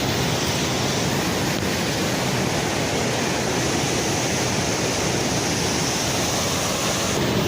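Waterfall and its current rushing steadily, a continuous noise of falling water.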